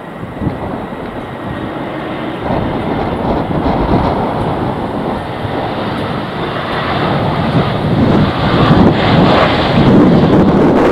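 Airliner engine noise building steadily louder as the aircraft approaches, with strong wind buffeting the microphone.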